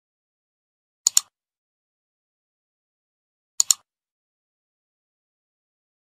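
Computer mouse-click sound effects, each a quick double click of press and release: one about a second in, another about two and a half seconds later, and a third starting right at the end.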